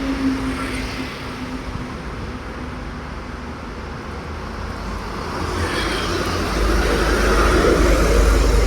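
A heavy truck driving past on the road: engine and tyre rumble builds up and is loudest near the end. A faint steady tone dies away in the first second.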